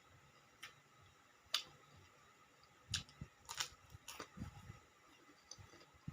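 Close-up eating sounds: scattered sharp crisp crunches and clicks, the loudest about a second and a half in and a cluster around the middle, with soft chewing between them.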